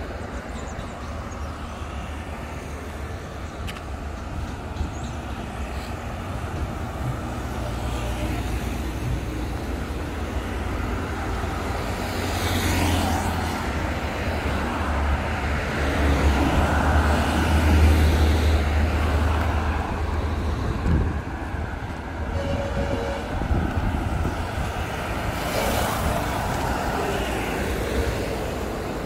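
Road traffic at a busy town junction: engines and tyres of passing vehicles. It grows louder about halfway through as a heavier vehicle passes close by.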